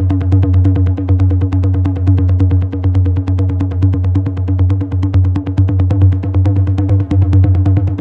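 Techno pattern played on a Roland TR-8 drum machine: a steady deep bass under fast, even hi-hat ticks, with a held tone above.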